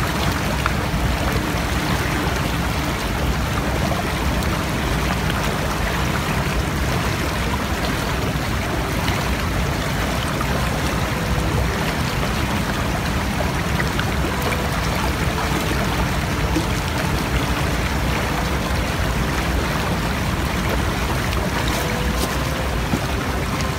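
Shallow, fast-flowing rocky stream rushing over stones, a steady loud wash of water.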